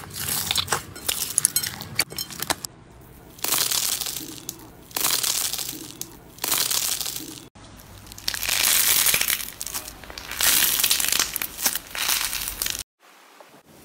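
Hands working slime. First come many small crackling pops as foam-bead slime is kneaded. Then come long crinkling squeezes of a foil-wrapped slime ball, and after that squeezes of honeycomb slime, each stroke a second or so of crackle. The sound cuts off abruptly about a second before the end.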